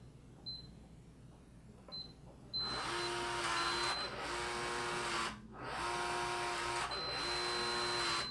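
Schlage Connect touchscreen deadbolt: short keypad beeps as a four-digit code is entered, then the lock's motor drives the bolt. It runs for about two and a half seconds, stops briefly, and runs again for about two and a half seconds, with a steady high beep sounding over the second run. The lock is operating incorrectly and needs a factory reset.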